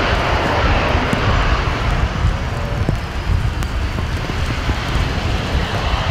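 Jet engines of a Boeing 737-800 (CFM56 turbofans) as it rolls out on a wet runway after landing, with a loud, even jet roar and the hiss of spray. The roar eases a little partway through as the aircraft slows.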